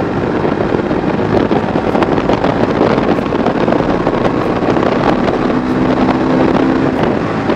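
Bajaj Dominar 250's single-cylinder engine running hard at highway speed, pulling up toward 100 km/h, with wind rushing over the helmet-mounted microphone.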